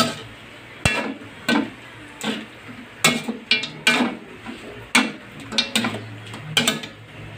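Metal spatula stirring food in a metal wok, scraping and clanking against the pan in irregular knocks a little under two a second.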